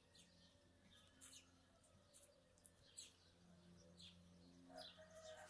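Faint, short bird chirps scattered through near silence, over a faint steady low hum.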